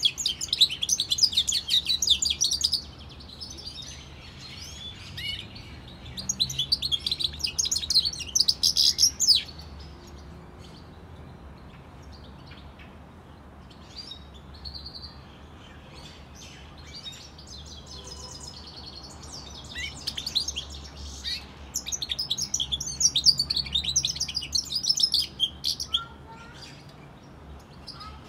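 Goldfinch × canary hybrid (a mule) singing a fast, high twittering song. It comes in several long bursts of warbling phrases, separated by quieter pauses.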